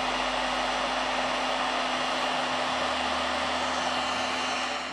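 Hot air rework gun blowing steadily onto a phone frame: an even rush of air with a steady low hum from the blower. It cuts off near the end.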